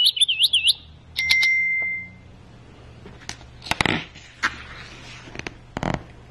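Recorded bird chirps and tweets played by a children's sound book: quick looping whistles, then a longer steady whistle about a second in. Later comes the rustle and click of the book's page being turned, twice.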